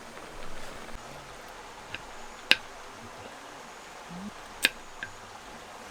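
Steady rush of flowing water, with two sharp clicks about two and a half and four and a half seconds in and a few fainter ticks.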